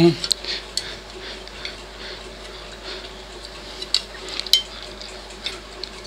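Scattered light clicks and taps of hands handling a microwave oven magnetron, pushing its paper-wrapped high-voltage terminal into the metal filter box.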